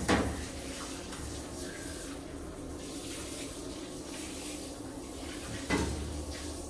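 Water bubbling and churning steadily in a stainless-steel ozone bath tub with a dog in it. A short louder burst of noise comes about five and a half seconds in.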